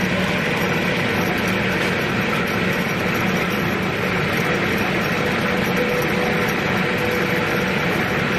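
Jet fuel rushing through the refuel valves into a Boeing 737 NG's refuel manifold during pressure refuelling: a steady rushing hiss with a low, even hum beneath it.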